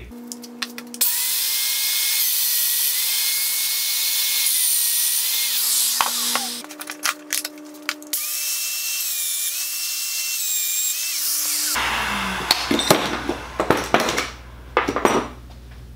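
Festool Domino DF 500 joiner running twice, about five and then about four seconds, its motor whining steadily with slight dips as it plunges mortises for 6x40 dominoes. Clicks and knocks follow each run as the work is handled and a clamp is worked.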